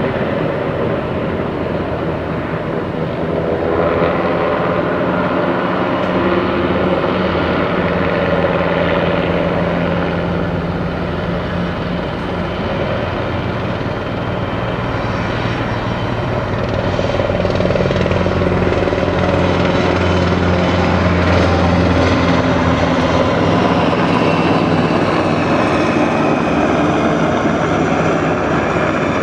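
Low-flying military helicopters passing overhead: a loud, steady rotor and engine sound that grows a little louder past the middle.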